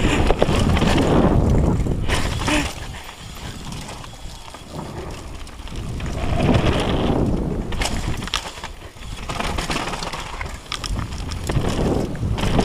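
Downhill mountain bike ridden fast over wooden boardwalk planks: tyres rumbling and knocking on the boards, with the frame and chain rattling, and the noise rising and falling as the trail changes.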